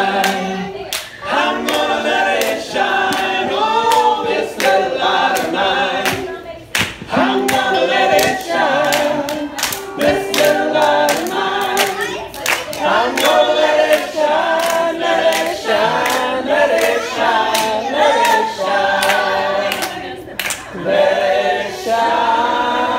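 Several voices singing together, largely without instruments, with hands clapping along.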